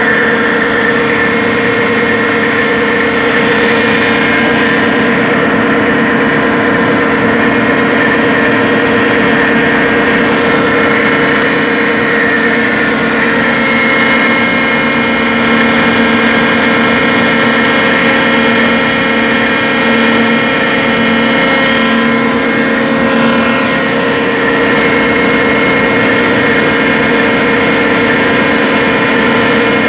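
Underground core drilling rig running steadily: a loud, even machine drone with several held tones over a noisy hum.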